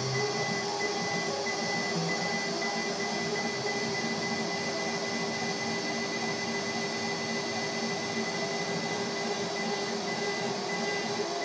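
CNC router milling a wooden board: the spindle runs with a steady whine over the noise of the bit cutting and the dust extraction.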